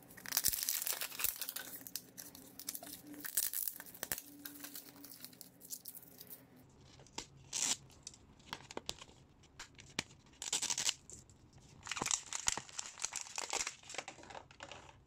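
A toy capsule ball's packaging being torn and crinkled open by hand, in irregular bursts of tearing and crinkling with sharp clicks between.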